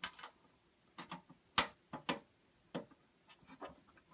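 Sheet-metal top cover of a desktop PC case being slid back into place on the chassis: scattered light clicks and knocks, the loudest about one and a half seconds in.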